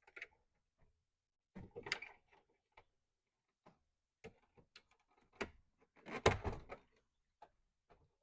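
Hands working a truck's plastic door panel and trim parts: scattered clicks, taps and rustles, with a louder spell of knocking and rustling about six seconds in.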